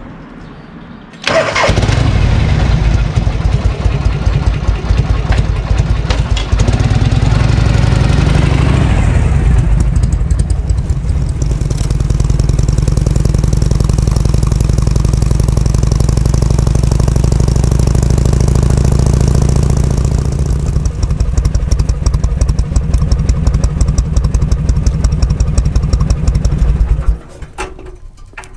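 Harley-Davidson Shovelhead FLH V-twin engine starting about a second in, then running and settling to a steady idle after several seconds. It stops abruptly near the end.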